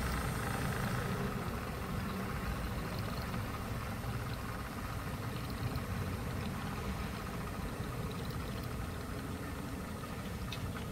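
Model trains running on the layout: a steady mechanical rumble with an engine-like hum, with a couple of faint clicks.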